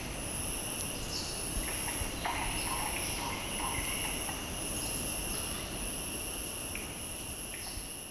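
Forest ambience of insects and birds: a high, steady insect trill that swells about once a second over a lower insect buzz, with a few short bird calls, including a quick run of repeated notes a little after two seconds in.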